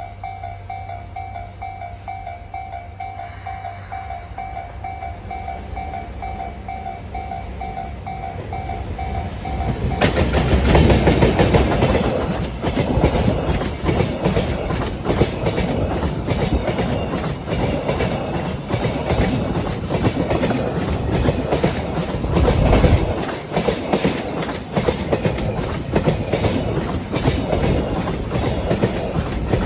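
Japanese level-crossing warning bell ringing in quick repeated dings. About ten seconds in, a JR Freight EF210-300 electric locomotive hauling a long train of Koki container wagons arrives loudly and passes, its wheels clacking steadily over the rail joints.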